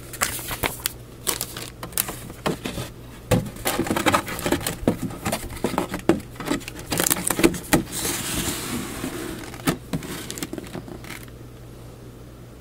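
A cardboard plastic-model kit box and its contents being handled: paper and plastic bags rustling and crinkling, with light taps and knocks, then a longer rubbing sound as the cardboard lid slides down over the box. The handling stops about eleven seconds in.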